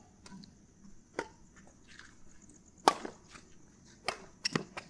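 Sharp hits of a rally in play: one about a second in, the loudest a little before three seconds in, then several quick hits close together near the end.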